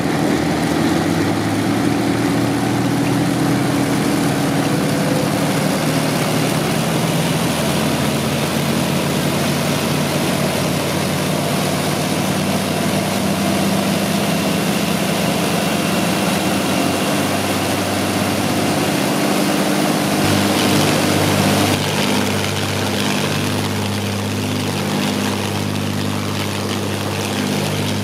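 Rolls-Royce Merlin V12 aero engines running steadily at a loud, even note. The note shifts and drops slightly in level about two-thirds of the way through.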